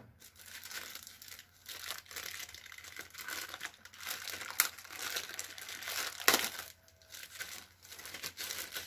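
Paper and packaging handled in the hands, crinkling and rustling in irregular bursts, with a sharper crackle about six seconds in.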